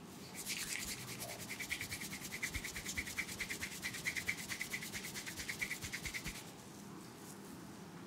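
Fingertips rubbing vigorously over short hair and scalp in a head massage: a fast, even scrubbing of about ten strokes a second that stops about six seconds in.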